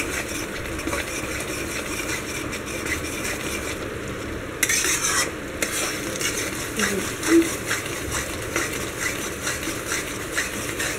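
Metal spatula stirring and scraping a thick, bubbling mixture of gram flour and sugar syrup around a metal kadhai over a gas flame, in quick repeated strokes over a soft sizzle, with a louder burst of hiss about halfway through. The mixture is being cooked down into mohanthal and stirred without pause so it doesn't stick and burn.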